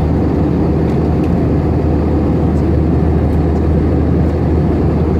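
Airbus A321 cabin noise in cruise: the steady rush of airflow and engines, with a constant low hum under it.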